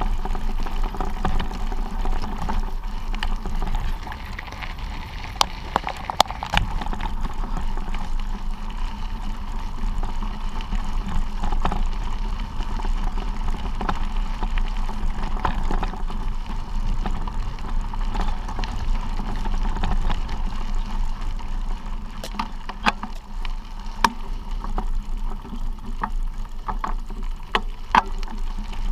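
Bicycle rolling along a gravel track: a steady rumble of tyres on loose stones and wind on the microphone, with scattered sharp clicks and rattles from stones and the bike, more of them near the end.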